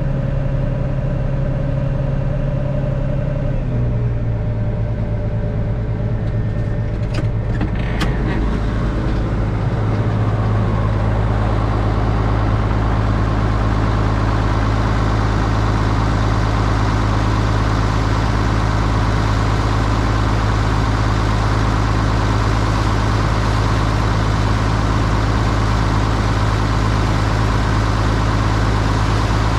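Case IH 8940 tractor engine running steadily, heard from the cab. Its note drops about four seconds in, a few sharp clicks come near eight seconds, and from about ten seconds it runs louder and fuller.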